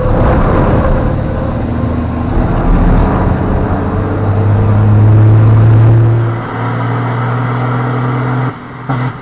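Race truck's diesel engine heard from inside the cab, pulling hard under load with a loud, steady drone and a faint high whine rising at the start. It is loudest a little past halfway and eases off about six and a half seconds in. Near the end the sound turns choppy, cutting in and out.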